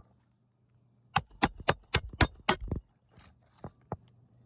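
Hand hammer driving a roofing nail through an asphalt shingle: a run of six quick ringing metal-on-metal strikes, about four a second, followed by a few lighter taps.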